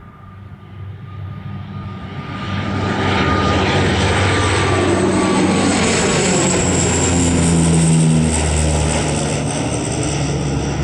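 ATR 72-202 twin turboprop taking off, its two Pratt & Whitney Canada PW124B engines and propellers at full power. The sound swells over the first few seconds, is loudest about eight seconds in, and its tones fall in pitch as the aircraft passes.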